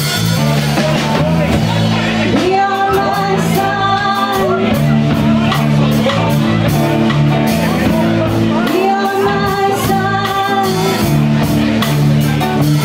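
A live band playing a slow rock song: drums, a steady bass line and a higher lead line of held notes that bend and repeat a phrase.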